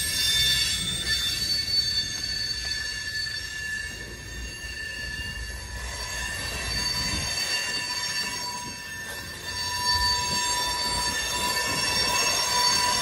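Freight train of tank cars rolling slowly past, its steel wheels squealing against the rails in several steady high tones over a low rumble. The squeal grows louder about ten seconds in.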